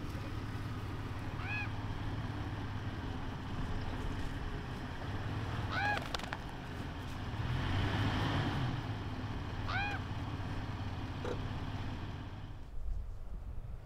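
Jeep Wrangler TJ engine running at a low, steady idle as it creeps across grass, dropping away near the end. Three short, high, honk-like calls come over it, about four seconds apart.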